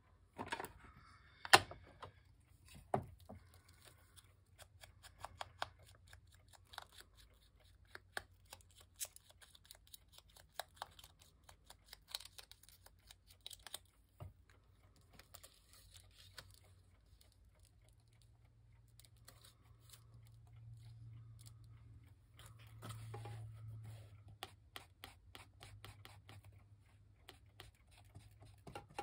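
Paper craft pieces being handled and arranged on a work surface: scattered light clicks, taps and rustles of paper, with one louder tap about a second and a half in.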